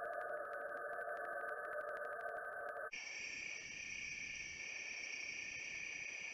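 Night-time tropical forest insect chorus picked up by a camera trap's microphone: steady overlapping tones with a fast ticking of about ten pulses a second. About three seconds in, it cuts off abruptly and a different, higher-pitched steady chorus takes over.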